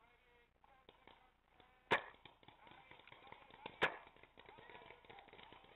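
Two sharp paintball marker shots about two seconds apart, with light rustling and small ticks in the undergrowth between them.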